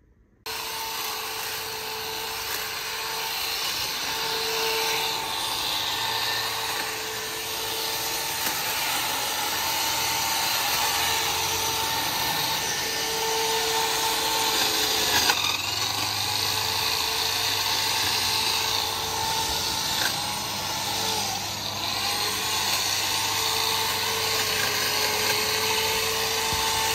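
Hedge trimmer running steadily, a constant motor whine with a buzz of cutter noise that wavers slightly as it works.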